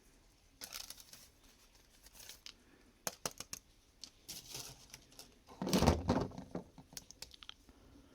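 Toy packaging being handled and opened: crinkling and tearing with scattered small clicks. The loudest crinkling comes near six seconds in.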